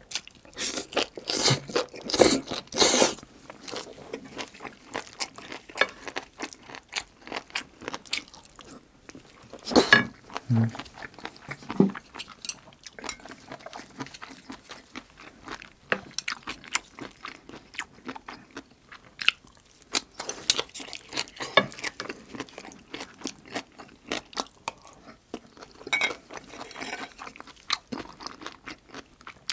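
Close-miked eating: a mouthful of stir-fried seaweed stems taken in and chewed, then a long run of crunching and wet mouth clicks. The loudest bursts come in the first three seconds and again about ten seconds in.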